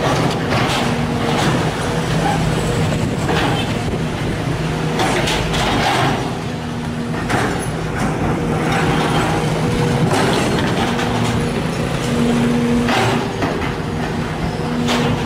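Sumitomo SH210 hydraulic excavator's diesel engine running steadily under load while digging, with repeated short knocks and scrapes as the bucket works the soil.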